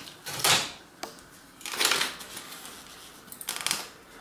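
Bicycle wheels being taken off a mountain bike in a stand: three short bursts of metal rattling and clicking as the wheels come out of the fork and frame.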